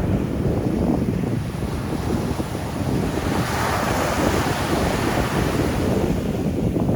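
Wind buffeting the microphone with a low rumble, and surf breaking on the shore: a wave's hiss swells about three seconds in and washes out over the next few seconds.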